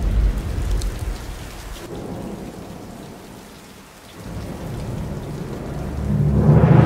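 Rain and thunder sound effects: a heavy low rumble under the rain dies down to quiet rain about halfway through, then builds again to a loud swell near the end.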